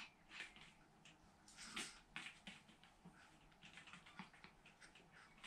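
Faint, scattered light taps and rustles of a small dog padding across foam floor mats and tugging a tissue out of a wooden tissue box.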